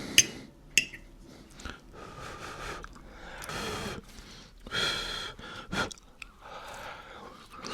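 A person's breathy exhales and mouth sounds, broken by a few sharp clicks.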